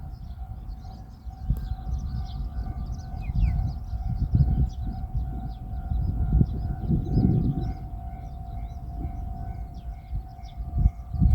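Japanese railroad level-crossing alarm ringing: an electronic ding repeating evenly about twice a second over a steady tone, which signals that a train is approaching. Birds chirp, and there is a low, uneven rumble.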